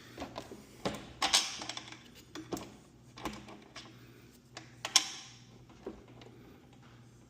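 Irregular clicks and knocks of small metal hardware and hand tools being handled during garage door repair work, with a bolt and locking washer being fitted. Two sharper knocks, about a second and a half in and about five seconds in, are the loudest.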